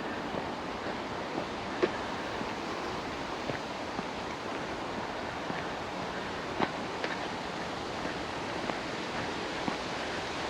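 Steady wind blowing across the hillside and over the microphone, with a few faint clicks scattered through, the sharpest about two seconds in.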